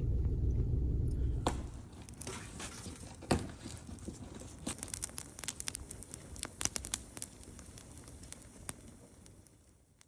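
Crinkling and tearing of wrapping, a run of irregular sharp crackles, after a low rumble that stops about a second and a half in.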